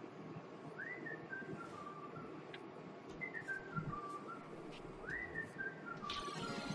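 Faint whistled tune from a music video's intro: three short phrases, each sliding up to a high note and then stepping down through four or five lower notes.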